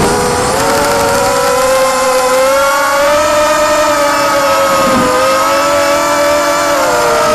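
The quadcopter's four DYS BE1806 brushless motors spinning 5045 propellers: a steady buzzing whine whose pitch rises and sags with throttle, with a short dip at the start and another about five seconds in.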